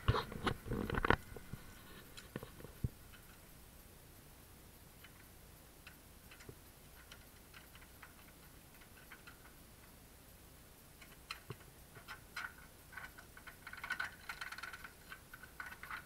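Light metal clicks and knocks from handling a door's mortise lock with a screwdriver at its faceplate. A burst of louder knocks comes right at the start, then scattered single clicks, thickening into a quick run of clicks near the end.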